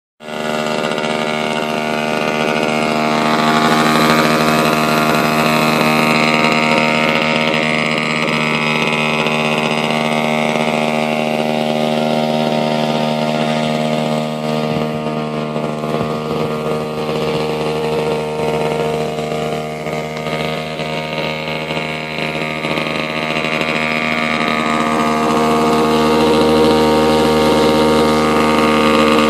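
OS .65 AX two-stroke glow engine of an RC Bf 109 scale model idling steadily on the ground, rising a little in speed now and then.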